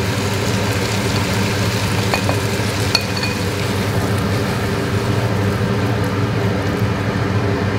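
Mussels, squid and prawns sizzling in hot olive oil in a frying pan, a steady hiss over a low hum, while the pan is tossed. A short clink about three seconds in.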